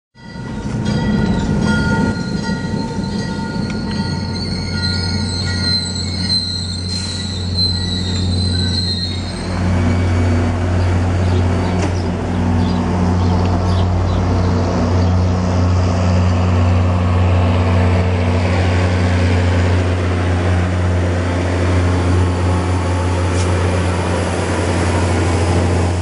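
MBTA commuter train at a station: a high-pitched metallic squeal from its running gear lasts for roughly the first nine seconds. Under it is the steady low hum of the diesel locomotive, which carries on alone once the squeal stops.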